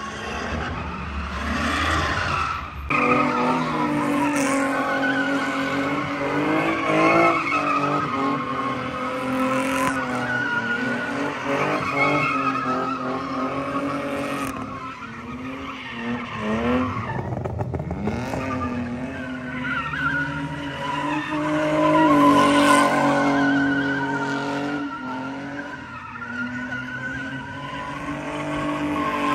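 Car engine held at high revs with tyres squealing in a wavering screech; the engine note dips and climbs again several times.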